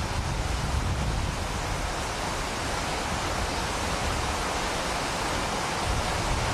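Steady rush of churning, foamy river water, with wind buffeting the microphone during the first few seconds.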